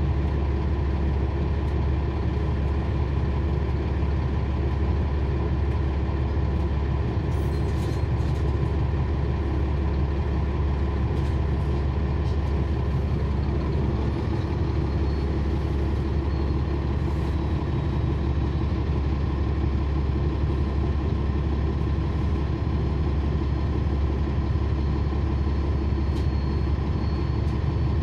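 Cummins ISL9 inline-six diesel of a 2012 NABI 40-SFW transit bus running steadily, heard from on board the bus. It is a low, even rumble that does not change in pitch or level.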